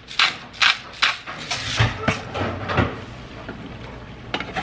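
A hand spice grinder being twisted over a pan, a quick series of crunchy grinding strokes about two a second that stops about a second and a half in. Two low knocks follow, then a steady faint hiss.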